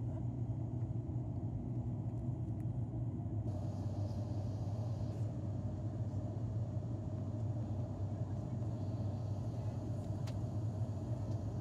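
ATR 72 turboprop cabin noise during the climb after take-off: a steady low drone of the propellers and engines heard from inside the passenger cabin.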